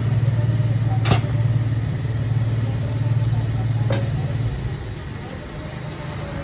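A nearby engine idling, a steady low hum that fades about four and a half seconds in, with two sharp clicks over it.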